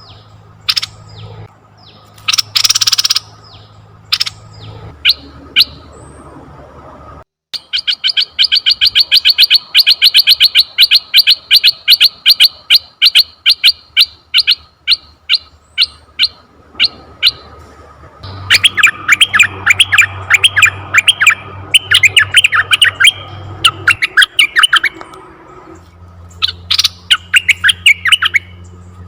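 Asian red-eyed bulbul calling: two harsh bursts early on, then, after a brief break, a long fast string of sharp chattering notes, and later another rapid run of notes. A faint low hum runs underneath.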